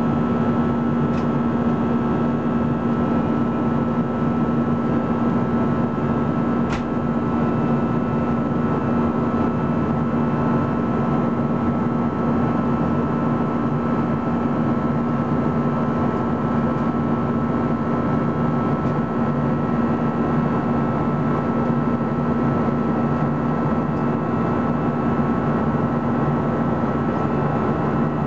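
Steady cabin noise inside an Airbus A320-214 in flight, heard over the wing: its CFM56 turbofan engines and the airflow make an even rush with a steady low hum and a fainter high tone. A single faint tick comes about seven seconds in.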